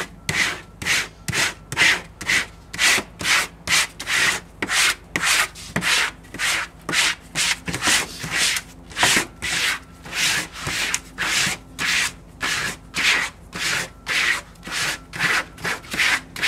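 A squeegee rubbed in short, even strokes over the pre-mask of a vinyl window decal, about two scrapes a second. The strokes press the decal flat so the vinyl sticks to the pre-mask and comes away from the release liner.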